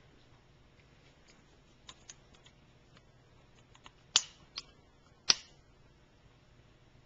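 Elephant-toothpaste foam, oxygen-filled soap bubbles from the rapidly decomposing hydrogen peroxide, crackling with scattered small pops, then two louder sharp pops about four and five seconds in.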